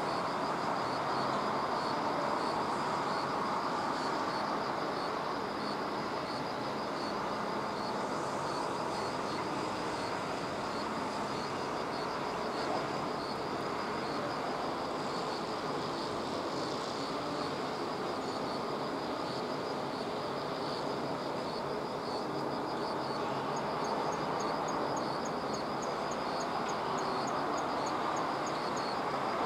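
Steady outdoor background rumble with insects chirping in a regular high pulse about once a second; a second, faster and higher chirp joins a few seconds before the end.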